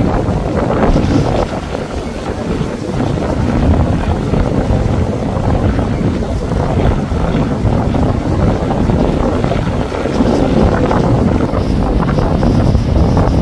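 Strong wind buffeting the microphone: a loud, uneven rumble.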